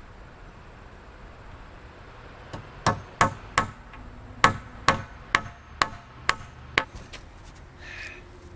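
Hammer striking timber wall framing: about ten sharp blows, roughly two a second, starting about two and a half seconds in, some with a short ring.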